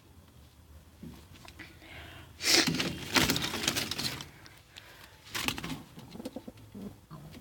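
Two male pigeons fighting: a loud scuffle of flapping wings from about two and a half seconds in, lasting over a second, and a shorter one a little later, with low cooing between.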